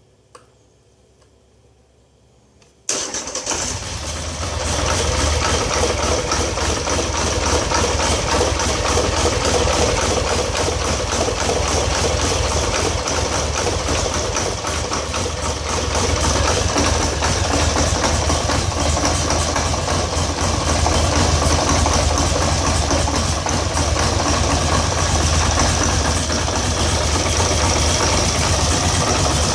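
2013 Polaris Sportsman 850 XP HO ATV's twin-cylinder engine starting about three seconds in, then idling roughly. The owner links the rough idle to a throttle-stuck (throttle release signal) fault code that new parts have not cleared.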